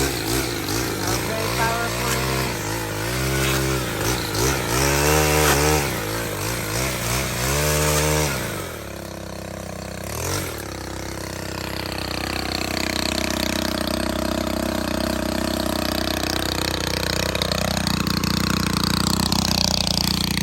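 Stihl HT 131 pole saw's small engine revving up and down several times as the chain is run, then dropping back to a steady idle about nine seconds in.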